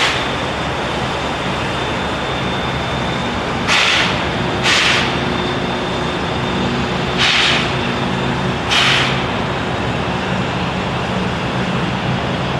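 Baldwin 2-6-2 narrow-gauge steam locomotive working slowly, its stack giving about five sharp exhaust chuffs at uneven intervals over a steady low hum.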